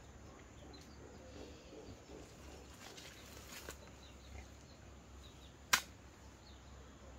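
One sharp click or knock about six seconds in, over a faint low hum with a few fainter ticks.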